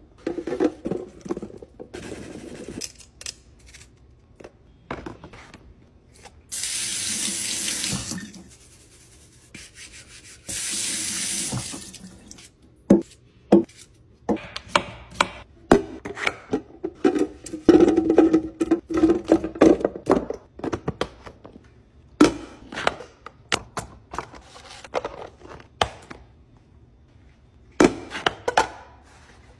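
Kitchen tap water running into a stainless-steel sink in two short stretches, between many clicks and knocks of plastic produce-keeper containers and their dial lids being handled.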